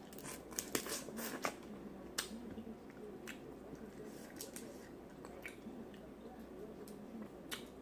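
Close-up wet chewing and smacking while eating a seafood boil, with sharp clicks, several close together in the first second and a half and a few more spread out after.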